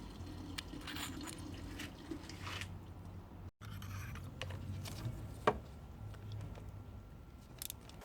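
Low, steady rumble of a 2010 Toyota Yaris engine running, with scattered light clicks and ticks. The sound cuts out briefly about three and a half seconds in, and a sharper click comes about two seconds later.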